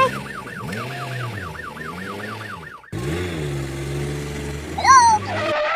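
Emergency-vehicle siren sound effect warbling quickly, about four swings a second, for roughly three seconds, then giving way to a steady low engine-like hum with a short chirp near the end.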